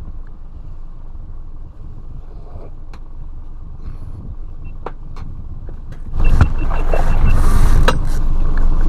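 Boat engine running steadily under way while trolling. About six seconds in, a loud rushing noise sets in, with a rapid high ticking for about a second.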